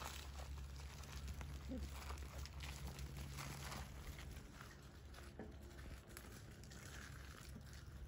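Whippet puppies scuffling over a plush toy on grass: faint rustling and scattered small clicks, with one brief squeak just under two seconds in, easing off after about five seconds.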